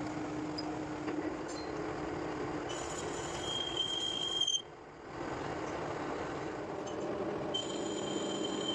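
Metal lathe running and turning a steel gear blank, with a steady machine hum. A high, thin whine joins in about three seconds in, cuts out with a brief drop in level, and comes back near the end.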